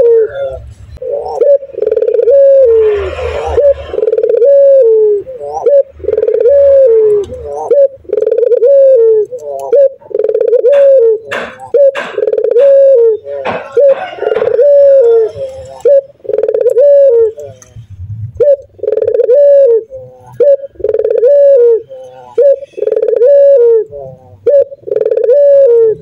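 Male barbary dove (puter) cooing over and over, a short rising-and-falling coo about once a second, in runs broken by brief pauses. A few sharp clicks come in the middle.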